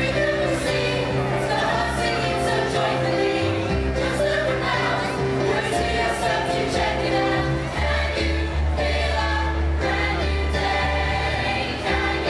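A group of singers performing a show song together over instrumental accompaniment, with sustained notes over a steady bass line and beat.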